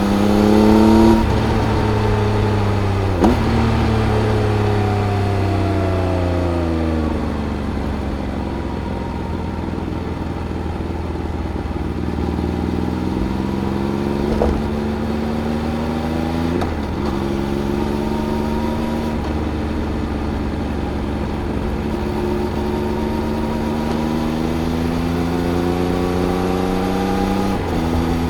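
2018 Triumph Speed Triple RS's 1050 cc three-cylinder engine through its Arrow exhaust, heard onboard at speed. Its pitch rises briefly, falls for several seconds as the throttle closes, then climbs again in a series of rising pulls, each broken by a short click and a small drop in pitch as the rider shifts up.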